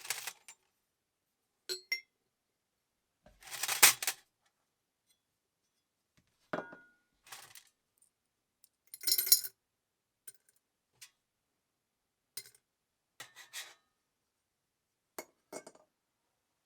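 Small hard metal parts clinking and clattering as they are handled and set down: about a dozen separate sharp clinks at uneven intervals, the loudest about four and nine seconds in.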